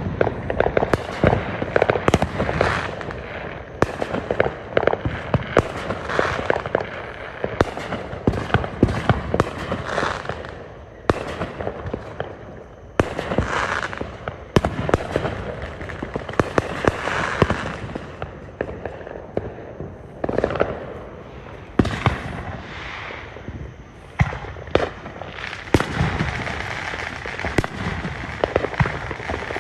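Fireworks going off in quick succession: many sharp bangs and pops layered with crackling, coming in louder clusters every few seconds.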